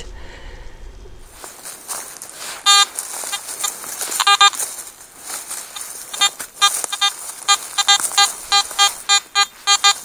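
Metal detector beeping as its coil sweeps the ground: a single short beep about three seconds in, another a couple of seconds later, then a rapid run of beeps, about three a second, over the last four seconds as it picks up a shallow target.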